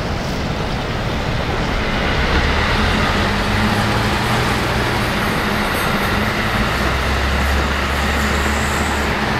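A CNG-powered city bus's engine running steadily as the bus pulls away and drives off, over city traffic noise.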